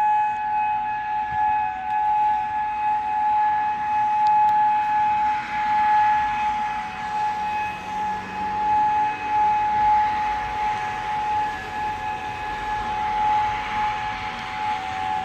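Outdoor civil-defense warning siren sounding a steady tone as a tornado warning alert, its loudness swelling and fading every few seconds.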